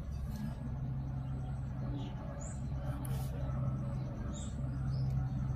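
Newborn puppies give a few faint, short, high squeaks over a steady low hum.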